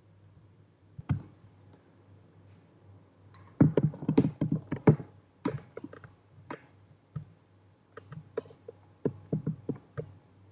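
Irregular clicks and knocks: a single faint knock about a second in, then a dense cluster from about three and a half to five seconds in, thinning to scattered clicks until near the end.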